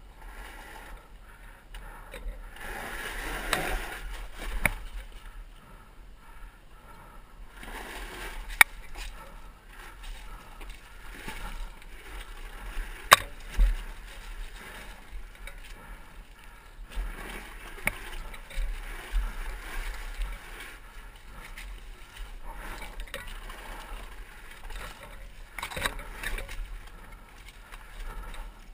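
2012 Zero MX electric dirt bike crawling over rocks and dry leaves: tyres crunching and scraping on the trail, with a few sharp knocks, the loudest about halfway through.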